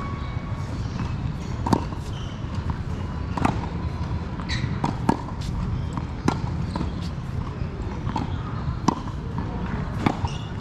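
Tennis rally on a hard court: sharp pops of the ball being struck by rackets and bouncing on the court, one every second or two, over a steady low background noise.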